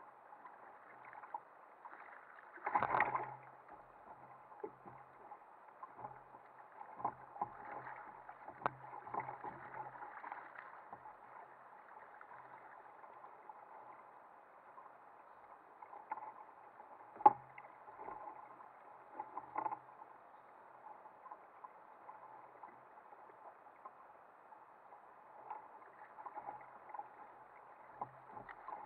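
Scattered knocks, clicks and rubbing on a sit-on-top kayak as a conger eel is hauled aboard on a hand-held fishing line, over a steady hiss of water and wind. A louder knock about three seconds in, and the sharpest click just past halfway.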